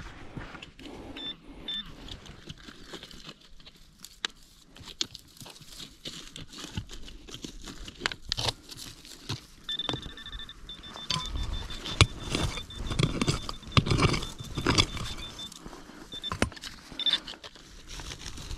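Hand digging in stony soil: a digger chopping and scraping dirt, with stones knocking and rattling, heaviest in the middle. A high electronic target tone from the metal-detecting gear sounds about a second in, then steadily from about ten seconds in, breaking into rapid beeps for several seconds.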